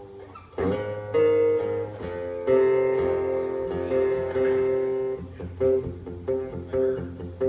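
Guitar played at a band sound check: a few chords strummed and left ringing, then shorter picked notes from about five seconds in.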